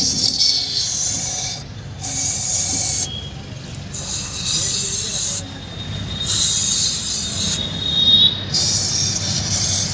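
Aerosol spray can with a straw nozzle spraying cleaner into an engine block's cylinder bores: five hissing bursts, each a second or two long, with short pauses between.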